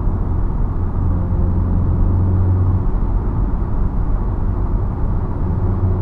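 Mk7 VW Golf R's turbocharged four-cylinder engine and exhaust running at a steady engine speed, a low hum that drops back about three seconds in and returns near the end.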